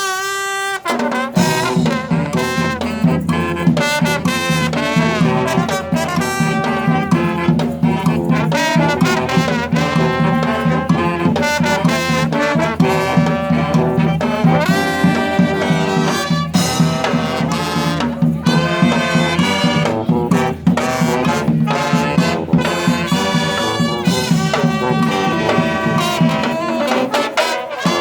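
Brass band playing, horns over a steady percussion beat, with a low sustained bass part coming in about a second in.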